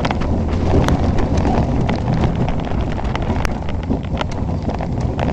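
Roller coaster ride heard from the train: wind rushing over the microphone and the train rumbling along the track, with rapid scattered clicks and rattles.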